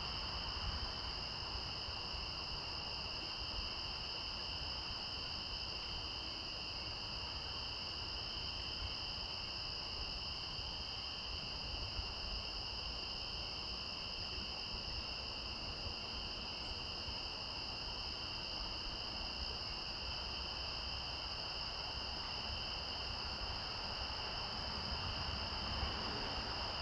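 Crickets trilling steadily as a continuous chorus, heard as two unbroken high-pitched bands, over a low rumble.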